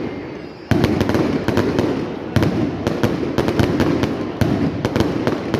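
Fireworks going off in a rapid, continuous barrage of sharp bangs and crackles, several a second, starting up less than a second in after a brief lull.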